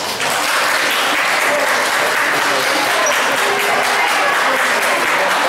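A hall audience of schoolchildren and adults applauding, starting suddenly and holding steady.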